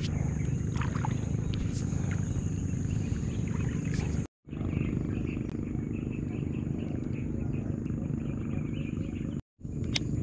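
Outdoor ambience: a steady low rumble under a steady high-pitched insect drone, cut to silence twice for a moment, a little over four seconds in and near the end.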